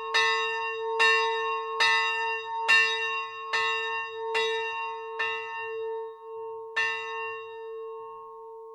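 The small 60 kg church bell 'Imrich', tuned to B″ (B-flat) and attributed to the Dytrych foundry of 1983, swinging and ringing alone, its clapper striking about once every 0.85 seconds, each stroke ringing on into a long hum. The strokes miss a beat about six seconds in and the last one falls about seven seconds in, after which the hum fades as the bell rings down.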